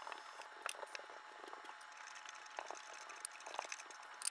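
Faint handling noises: scattered small clicks and taps from pliers and a plastic PTFE Bowden tube being worked at a 3D printer's metal extruder.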